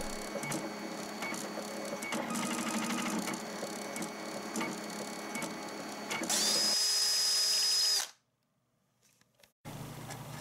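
Home-built 3D printer printing red plastic drag-chain links, its stepper motors buzzing and whining with shifting tones as the print head moves. About six seconds in, a louder whirring with a high, steady whine takes over for under two seconds and cuts off abruptly, followed by a short silence.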